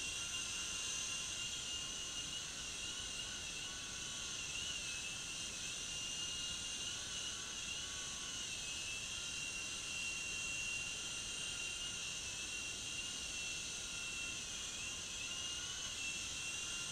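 Small U13A remote-control toy helicopter flying: a steady, high-pitched whine from its electric motor and rotors that wavers slightly in pitch as the throttle shifts.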